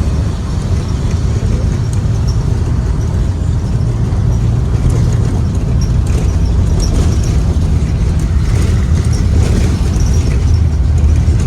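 2023 Blue Bird Vision school bus under way, heard from inside the cabin: its Ford 7.3L gasoline V8 and road noise make a steady low rumble, with light rattles.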